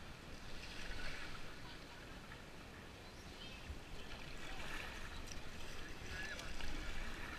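Kayak paddle strokes: the blades dip and splash in the river water several times, with water running off them between strokes.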